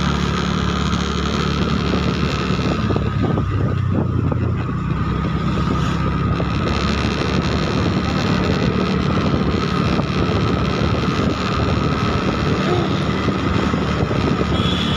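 Motor vehicle engine running steadily on the move, heard from on board, with a steady higher whine above it and wind noise on the microphone.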